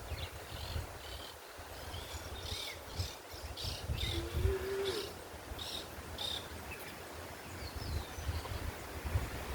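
Songbirds chirping in short, quick notes, with a brief lower call about four seconds in. Wind rumbles on the microphone underneath.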